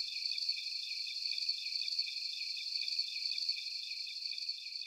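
Crickets chirping in a steady chorus of high, fast-pulsing trills.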